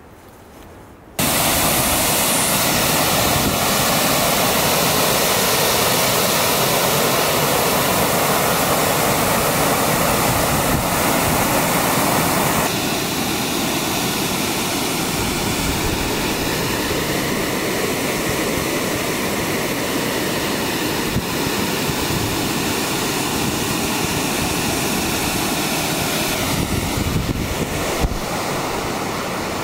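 Steady roar of a waterfall, rushing water. It cuts in abruptly about a second in and shifts slightly in tone twice later on.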